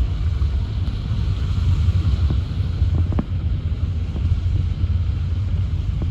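Steady low rumble of a vehicle on the move, with a couple of faint clicks about three seconds in.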